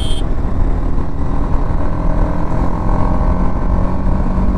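Sport motorcycle's engine running under acceleration as the bike picks up speed, with heavy wind rumble on the microphone.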